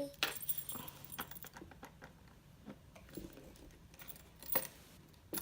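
Toy keys clinking on their ring and clicking in the door locks of a wooden toy doorbell house: a few scattered light clicks and clinks.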